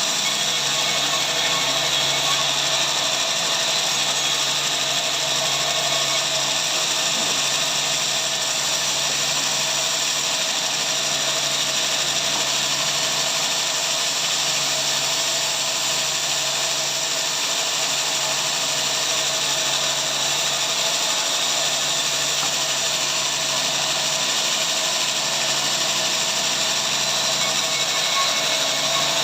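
A sawmill power saw running steadily, its mechanical noise holding at one level without letup.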